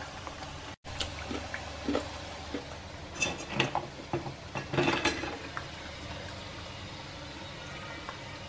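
Hot oil bubbling and hissing steadily in a kadai as snacks deep-fry, with scattered light metal clinks of a wire strainer and tongs against steel vessels. The sound cuts out briefly just under a second in.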